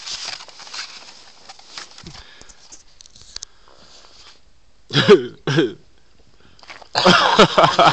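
People's voices: two short, loud vocal cries about five seconds in, then a burst of loud overlapping voices near the end, without clear words.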